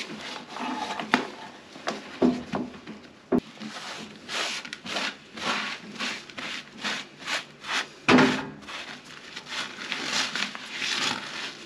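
Old wax being wiped off the floor around a toilet flange by a gloved hand with a paper towel: a run of rubbing strokes, about two a second, with a few sharp knocks in the first few seconds.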